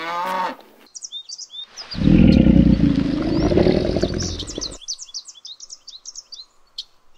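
Crocodile growling: a loud, low, rough rumble about two seconds in that lasts nearly three seconds, over small birds chirping. The tail of a cow's moo is heard at the very start.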